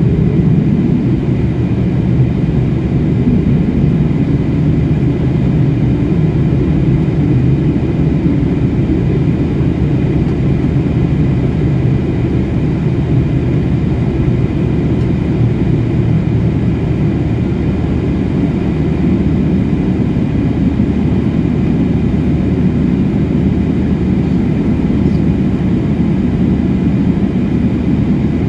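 Cabin noise of a jet airliner taxiing: a steady low rumble from the jet engines at taxi power, heard inside the cabin by a window over the wing, with a faint steady whine above it.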